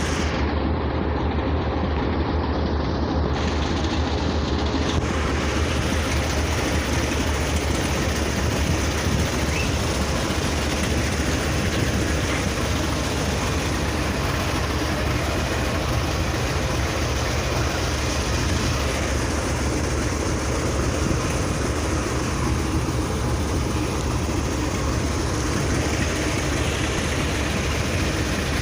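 Diesel-hauled passenger train, a steady, unbroken rumble.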